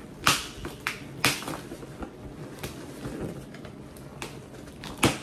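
Metal belt-buckle prong jabbing into and tearing through packing tape on a cardboard box: a few sharp clicks and snaps, the two loudest about a quarter second and just over a second in, with smaller ones spread through the rest.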